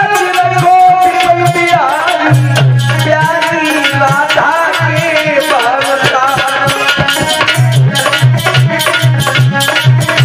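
Hindi devotional bhajan sung by a male voice in long, ornamented, gliding phrases, over harmonium and a hand drum playing a steady rhythm.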